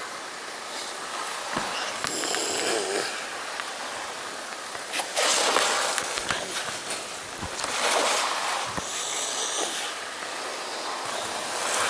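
Calico tabby cat hissing repeatedly in long breathy bursts, the loudest a few seconds in and again about two seconds later, with rumbling growls between them. It is the defensive warning of a frightened cat.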